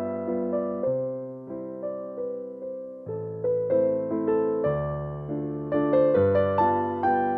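Background music: a soft piano melody played over chords, several notes a second.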